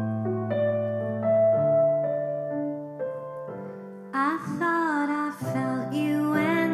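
Keyboard piano playing slow, sustained chords as a song intro; a woman's voice starts singing over it about four seconds in.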